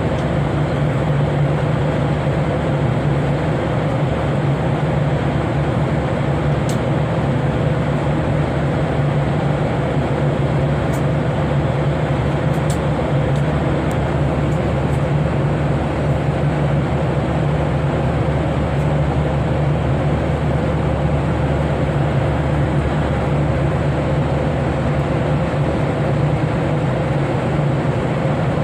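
Steady drone of an airliner cabin in flight: engine and airflow noise with a low hum, unchanging throughout, with a few faint ticks.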